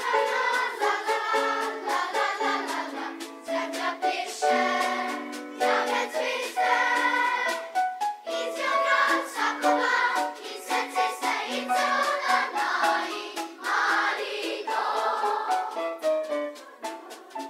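Massed children's choir singing a lively song with band accompaniment, the drum kit keeping a steady beat under the voices.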